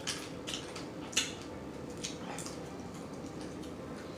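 Wet mouth smacking from someone eating blue crab close to the microphone: a handful of short, wet clicks in the first two and a half seconds, the loudest about a second in.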